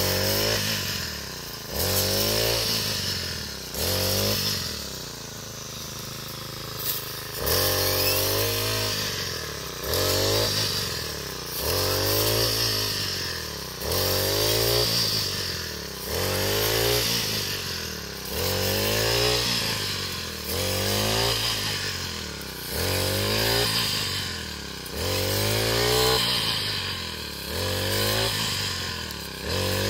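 Backpack brush cutter's engine revving up and down with each swing of the blade through standing wheat, about one rev every two seconds, easing to idle for a few seconds shortly after the start.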